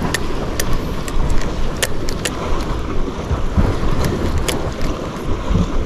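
Wind buffeting the microphone in a steady low rumble over an even hiss of sea wash, with a handful of sharp clicks scattered through.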